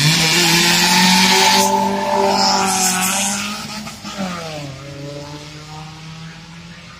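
Car engine held at high revs with tires squealing for the first couple of seconds. About four seconds in the engine note drops, and the sound fades away.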